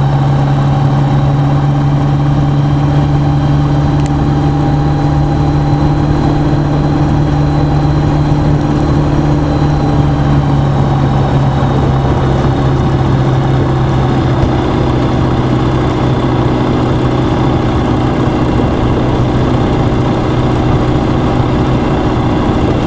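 Eurostar microlight aircraft's engine and propeller running steadily in flight, a loud even drone whose pitch shifts slightly about halfway through.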